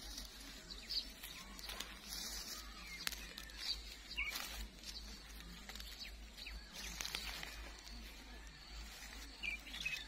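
Faint, short bird chirps every second or two, some sliding downward in pitch, over quiet outdoor background noise.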